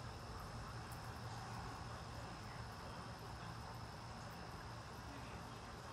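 A night insect trilling as one steady, unbroken high tone over a faint, even hiss of outdoor night ambience.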